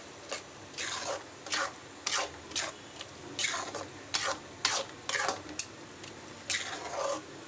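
A spatula stirring and scraping tomato-and-spice masala in a kadai, in short repeated strokes about twice a second, pausing briefly near the end.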